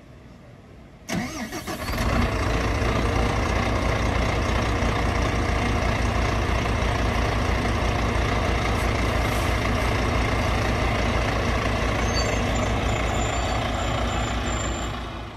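Bus diesel engine starting: about a second in it cranks briefly and catches, then settles into a steady idle.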